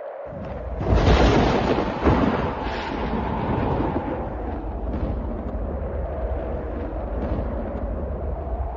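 A thunderclap about a second in, then a long rolling rumble of thunder over steady storm wind.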